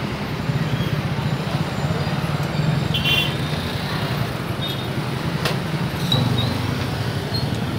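Motor scooter engine running at low speed in slow street traffic: a steady low hum with road and traffic noise around it.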